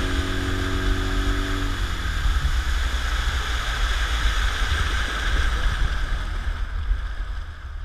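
Outboard motor pushing a small aluminium boat along at speed: a steady rumble with water rushing along the hull. It fades out near the end.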